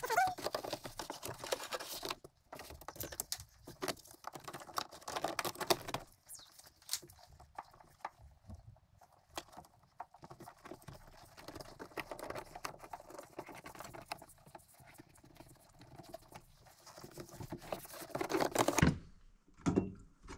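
Plastic interior trim panel of a Honda Fit being handled and pressed back into place: rapid rustling, scraping and clicking, busiest in the first few seconds and again in a loud cluster near the end.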